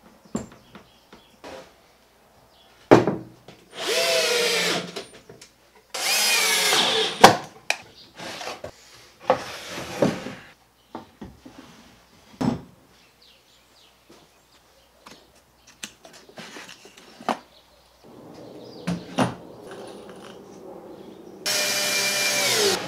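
Cordless drill driving screws into plywood in several short runs, its motor pitch rising and falling within each run and dropping at the end of the last. Sharp knocks of plywood panels being handled fall in between.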